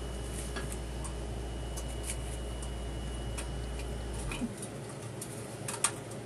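Light clicks and ticks of small metal parts and tools being handled during furnace wiring work, with a sharper cluster of clicks near the end. A steady low hum with a faint high whine underneath cuts off about four seconds in.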